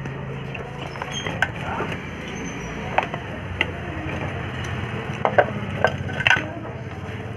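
Handling sounds of a mixer grinder's motor and plastic housing being worked apart: scattered clicks and small metallic clinks, with a quick cluster of sharper taps from about five to six and a half seconds in, over a steady low hum.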